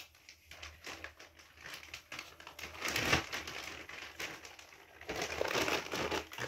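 Rustling, crinkling handling noise made up of many small crackles, getting louder about halfway through and again near the end.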